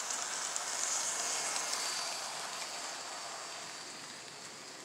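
N-scale model passenger train running on the track: a steady high-pitched hiss of wheels and small motor with faint clicks, growing fainter in the second half as the train moves off.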